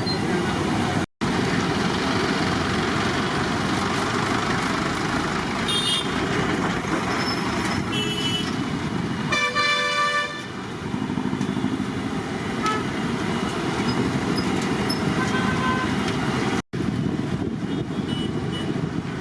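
Street traffic noise with vehicle horns: one horn sounds for under a second about nine and a half seconds in, with shorter toots around six and eight seconds. The sound cuts out for an instant twice.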